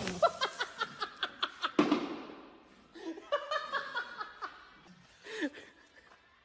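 Hard laughter in rapid bursts, about five a second, fading after two seconds. More laughing follows, then a short whoop-like voice sound near the end.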